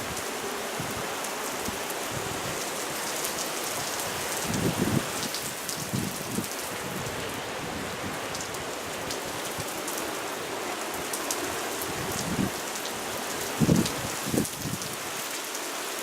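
Heavy rain falling steadily in a thunderstorm, with a few short louder thumps about five seconds in and again near the end.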